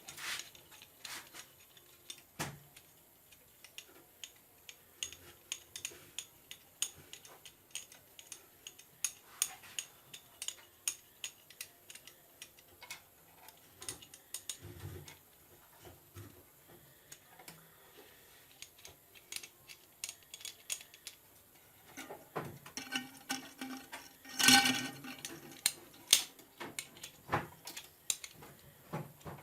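Small metal motor parts, screws and tools clicking and tapping irregularly as a mixer grinder motor is reassembled by hand, with one louder ringing metal clank about three-quarters of the way through.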